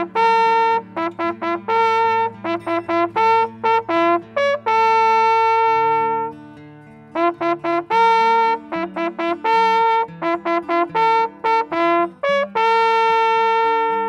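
Small coiled brass hunting horn sounding a hunting call: runs of quick short notes broken by long held notes, the phrase played through twice with a short pause between.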